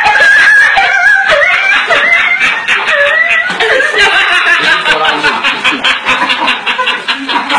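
A man's vocal imitation of a dog yelping after being scalded with hot water: high-pitched, wavering yelps and whines for about the first three and a half seconds, then laughter.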